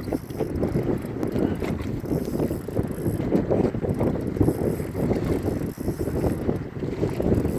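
Wind buffeting the microphone: an uneven low rumble that never settles into a steady tone or rhythm.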